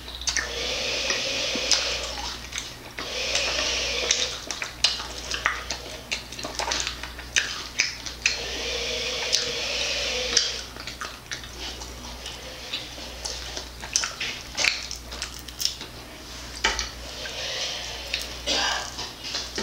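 Close-miked wet chewing of a crispy barbecue chicken wing, with many short sharp mouth clicks.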